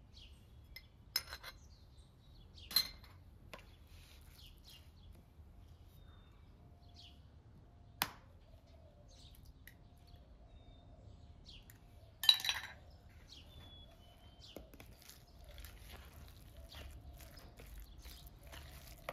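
Scattered sharp clinks and taps of a brass mortar, a metal spoon and an egg against a plastic bowl, a few seconds apart, the loudest a short rattle about twelve seconds in. Near the end a spoon clicks lightly as it stirs chicken mince in the plastic bowl. Birds chirp faintly throughout.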